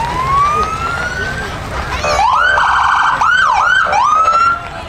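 Emergency-vehicle siren: a slow rising wail, then from about two seconds in a rapid warble and a few quick up-and-down sweeps, stopping shortly before the end.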